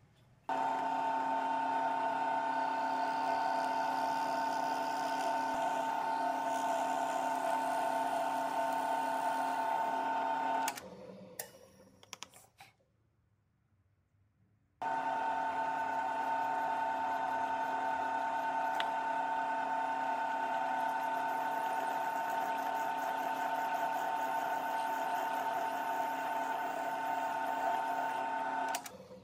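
Table saw motor running with a steady whine. It spins down after about ten seconds, is switched on again a few seconds later, and runs until it stops near the end.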